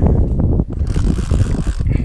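Wind buffeting the microphone on an open boat: a heavy, uneven low rumble, with a brief hiss about a second in.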